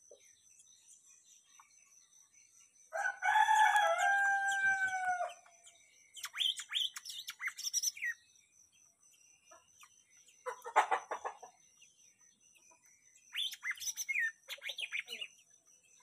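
A rooster crows once, one long call about three seconds in. Then a caged cucak mini songbird sings in three short bursts of quick chirps and whistles.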